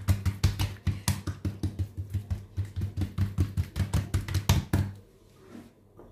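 Hands rapidly patting a folded sheet of oiled msemen dough against a countertop to flatten it, about five pats a second, stopping about five seconds in.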